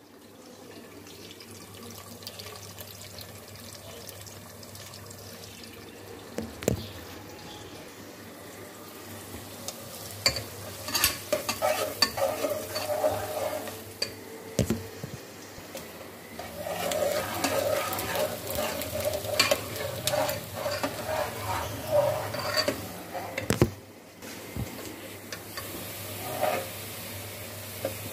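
Sliced onions sizzling as they fry in an aluminium pot, stirred with a metal spatula that scrapes and clinks against the pot. The stirring comes in bouts from about ten seconds in, with a few sharp knocks.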